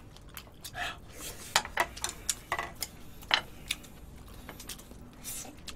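Chopsticks clicking and scraping against dishes as food is picked up: a scattering of short, sharp taps.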